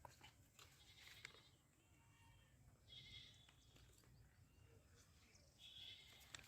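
Near silence, broken three times by a faint, high animal call.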